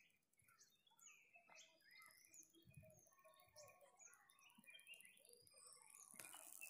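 Faint chorus of small birds: many short chirps and whistled notes from several birds overlapping, with a high hiss coming up near the end.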